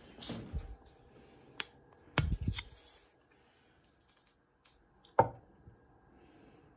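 Clicks and knocks from handling a plastic hot sauce bottle with a flip-top cap as it is opened and tipped: a cluster of clicks about two seconds in, and one sharp click, the loudest, a little after five seconds.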